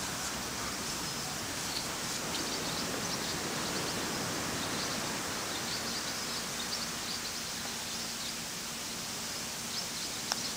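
Steady outdoor background hiss on an open golf course, with a few faint high chirps scattered through it. Near the end, a single short click of a putter striking a golf ball.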